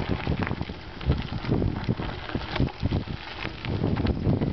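Wind buffeting the microphone of a camera carried on a moving bicycle, with irregular knocks and rattles from the bike as it rides.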